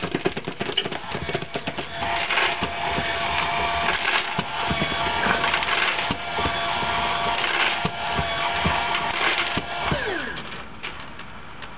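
Automatic pet feeder's motor running with a steady hum, then winding down in pitch and stopping about ten seconds in, over constant clicking and clattering.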